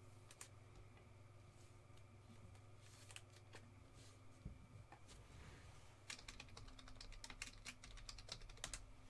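Faint quick clicking of computer keyboard typing, in a run from about six seconds in to near the end. Before it come a few soft clicks as a trading card is handled in a clear plastic holder.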